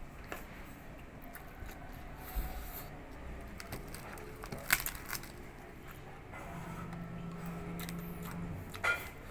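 Close-up chewing of crispy fried pork face, with a few sharp crunches, one about halfway through and one near the end.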